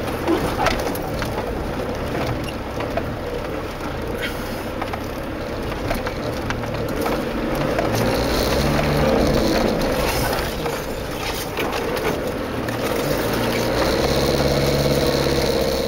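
Inside the cabin of an off-road 4x4 crawling over a rocky track: the engine runs low and steady, under scattered knocks, rattles and creaks from the body and suspension as it rolls over the stones.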